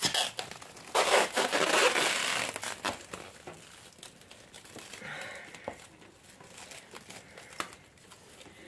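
Thin plastic stretch film crinkling and rustling as it is pulled off the roll and wound around a plant pot. It is loudest in a rustle of about a second and a half starting about a second in, with fainter crackles later.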